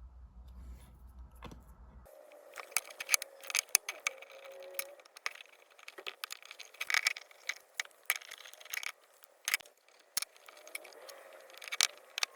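Small metal tool clicking, clinking and scraping against the brush gear of a Hornby Triang dock shunter model locomotive's motor as a carbon brush is moved aside for cleaning, starting about two seconds in, with a brief faint squeak a little later.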